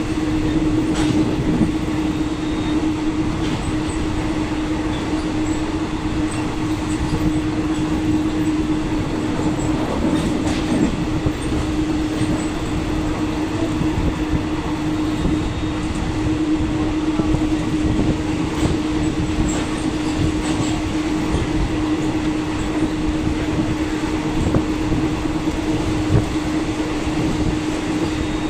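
A passenger train running at speed, heard from inside a fan-cooled second-class coach: a steady rumble of wheels on rail with a constant hum and a few clicks from rail joints.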